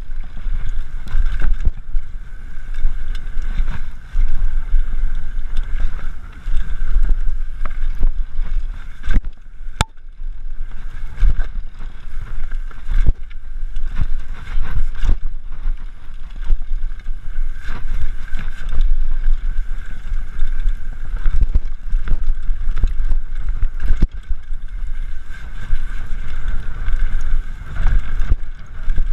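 Wind buffeting the microphone as a mountain bike rides fast over rough trail, with frequent rattles and knocks from the bike and a steady whirring buzz throughout.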